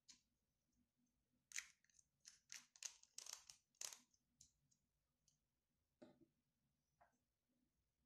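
Faint clicks and taps of small glass dropper bottles and their caps being handled and set down. A quick run of sharp clicks comes from about a second and a half to four seconds in, then a few single ticks.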